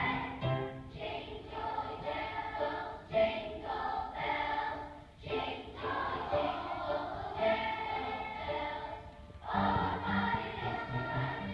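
Children's choir singing, with short breaks between phrases about five and nine seconds in.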